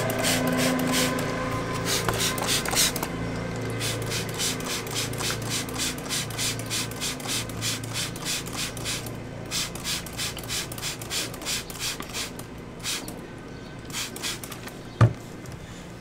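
Trigger spray bottle squirting water onto a motorcycle drive chain in quick repeated pumps, dense at first, then about two to three a second, thinning out and stopping near the end. A single sharp knock, the loudest sound, comes about a second before the end.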